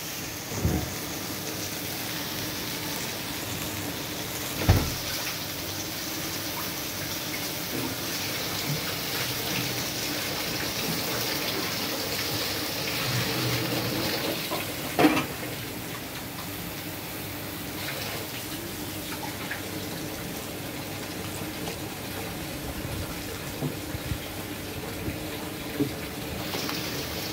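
Coconut milk poured from a carton into a clay pot of simmering chicken curry, over a steady bubbling hiss from the pot. There are a few knocks of a wooden spoon against the clay, the sharpest about five seconds in and again halfway through.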